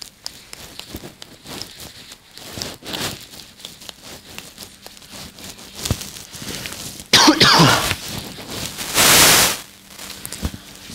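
A man coughs twice into his hand about seven seconds in, with two loud, rough coughs roughly a second apart. Before that there are only faint small clicks and rustles.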